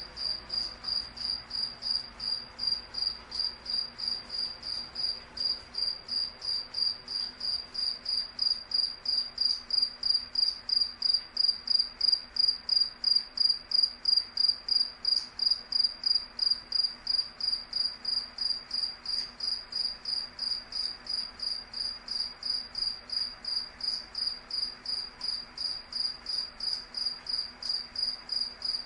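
A cricket chirping in a steady, even rhythm, about three high-pitched chirps a second.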